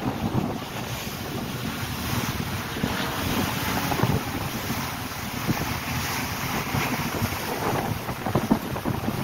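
Wind rushing and buffeting the microphone on the open deck of a moving ferry, over the hiss of water churned up in the boat's wake.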